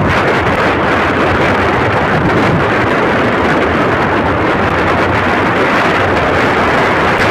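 Loud, steady rush of wind buffeting a camera microphone while riding a mountain bike.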